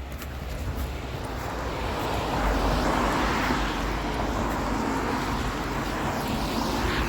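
A vehicle driving past on the road, its tyre and engine noise building over the first couple of seconds, holding steady, then falling away near the end.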